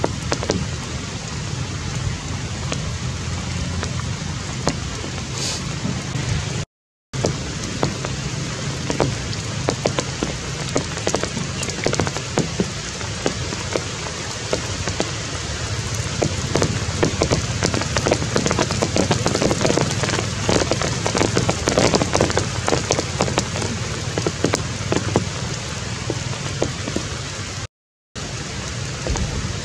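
Heavy rain falling, a dense steady patter of drops that grows heavier around the middle. The sound cuts out completely twice for a moment, about seven seconds in and near the end.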